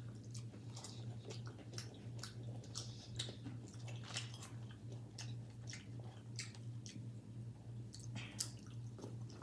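Faint chewing and biting, a scatter of short wet clicks from mouths eating, over a steady low hum.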